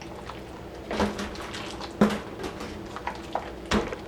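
Kitchen containers being handled and set down on a counter: a few sharp knocks and clinks, the loudest about two seconds in.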